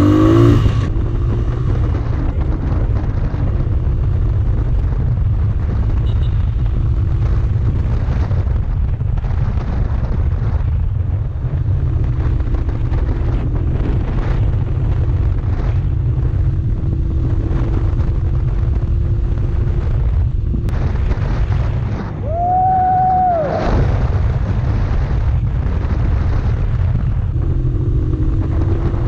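Heavy wind buffeting on the microphone of a moving Honda TMX 155 motorcycle, with its single-cylinder engine running faintly underneath at slowly changing speed. About 22 seconds in, the rumble briefly drops and a steady beep-like tone sounds for about a second.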